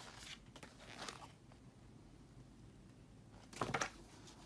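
Pages of a picture book rustling as a page is turned over, with a brief louder rustle of the paper a little before the end.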